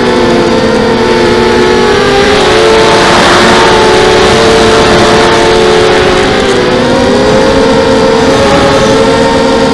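Quadcopter's four RCX 1804 2400kv brushless motors spinning 5x3 props, whining in flight, recorded close up on the quad itself. Several pitches waver up and down against each other as the throttle and attitude change.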